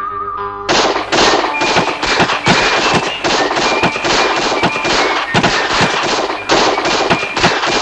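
Rapid, unbroken barrage of gunshot-like bangs from pistols fired into the air, starting under a second in and lasting about seven seconds.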